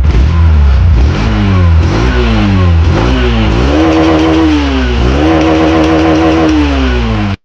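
Hero Xtreme 160R's 163 cc air-cooled single-cylinder four-stroke engine heard at the exhaust, revved in a few quick blips, then twice held at higher revs for about a second each before falling back. The sound cuts off suddenly near the end.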